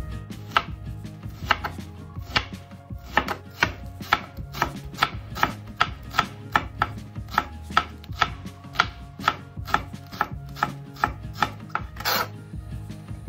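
Kitchen knife slicing a green onion on a cutting board: a steady run of sharp chops, about two to three a second. Near the end there is a single longer scraping sound.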